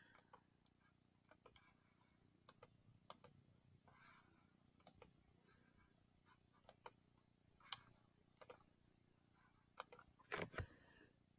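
Faint, sharp computer clicks, often in close pairs, scattered every second or so as drawing tools are picked from a menu on a Chromebook. A brief rustle comes about ten seconds in.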